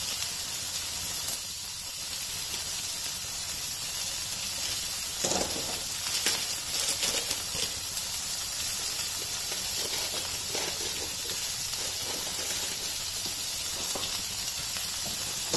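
Oil sizzling steadily in a frying pan with potato cubes, cumin, mustard seeds and curry leaves over a low flame, with scattered crackles and pops, most of them about five to eight seconds in.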